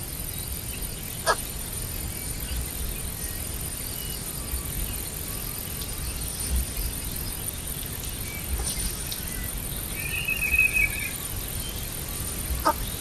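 Outdoor ambience with a steady high-pitched insect drone, a short chirping call about ten seconds in, and two sharp clicks, one near the start and one near the end.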